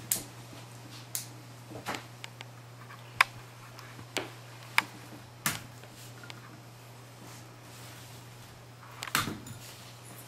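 Scattered sharp metallic clicks and taps, irregularly spaced, from pliers and small steel parts being handled while the E-clip is worked off the pivot pin of a Leader Dynamics T2 rifle. A steady low hum runs underneath.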